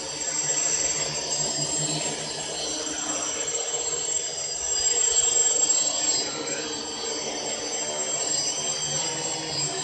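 Prototype quadcopter drone's electric motors and propellers buzzing steadily, the pitch wavering slightly; it grows louder about five seconds in, then eases back.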